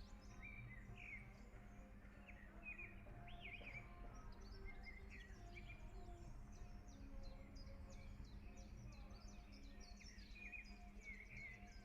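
Faint songbirds chirping and twittering in many quick short notes, over soft background music with long held tones.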